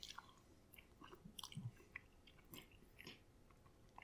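Faint chewing of soft spaghetti in meat sauce: scattered small wet mouth clicks.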